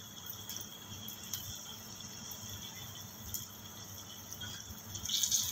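Besan-battered potato slices deep-frying in hot oil in a kadhai on a high flame: a steady sizzle with scattered crackles, briefly louder about five seconds in.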